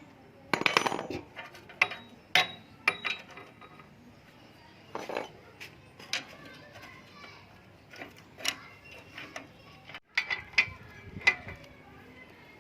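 L-key wrench clinking and knocking against the motorcycle silencer's mounting nuts as they are loosened to take the exhaust off, in irregular metallic clinks with a short rattling scrape about a second in.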